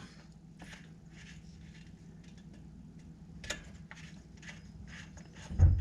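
Oil fill cap with dipstick being screwed into the engine to check the oil level: soft scattered ticks and clicks, one sharper click about three and a half seconds in, and a dull thump near the end, over a faint steady hum.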